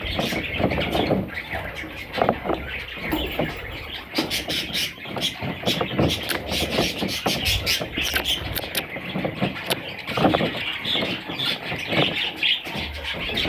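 Budgerigars chattering and chirping continuously, with many short clicks and some low rustling underneath.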